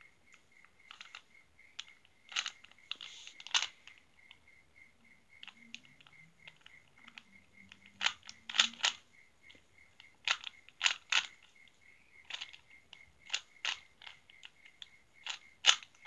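A 3x3 Rubik's cube being turned by hand: quick plastic clacks of the layers snapping round, in irregular bunches with short pauses between.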